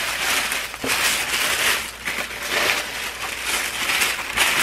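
Glossy plastic packaging sleeve crinkling and rustling as it is handled and unwrapped.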